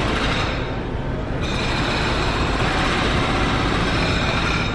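Steady road and engine noise of a car creeping in city traffic, heard from inside the car.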